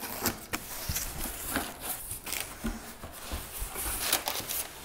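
A cardboard shipping box being opened: packing tape pulled off the top seam and the flaps folded back, with kraft packing paper crinkling. Irregular ripping, scraping and rustling throughout.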